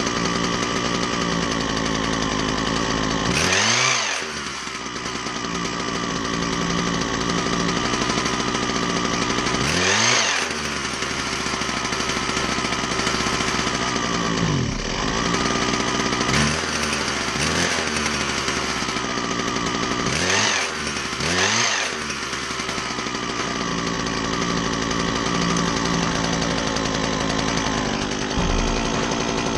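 Husqvarna 122HD60 hedge trimmer's small two-stroke engine running at idle and revved up briefly about five times, while its carburetor is adjusted with a screwdriver.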